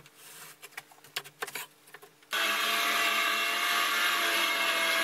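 Faint taps and scrapes of a pencil and steel square marking a plywood board. About two seconds in, a cordless DeWalt circular saw comes in abruptly and runs steadily, ripping a strip off 3/4-inch plywood.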